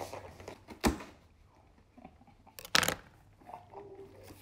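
Large cardboard shipping box being handled and opened: a sharp thump about a second in, then a short, loud burst of cardboard rustling and tearing just before the three-second mark.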